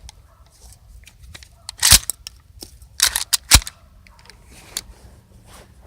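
Two 20-gauge shotgun shots with birdshot, about a second and a half apart, with brief sharp clacking between them.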